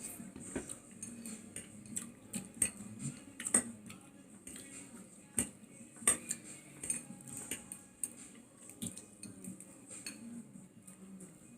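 Cutlery clinking and scraping against a plate while eating, a scatter of irregular small clicks and taps.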